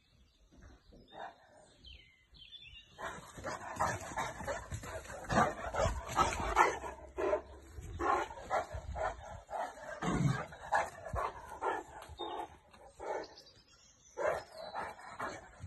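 Large dog barking repeatedly in quick, excited volleys, starting about three seconds in and going on with short breaks.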